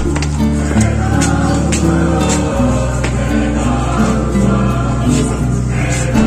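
Music: a choir singing over sustained low notes that change in steps.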